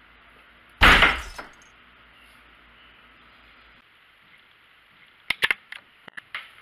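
A single loud crash about a second in that dies away within half a second, over the steady hiss of a television's no-signal static, which cuts off just before four seconds. Near the end comes a quick run of sharp clicks.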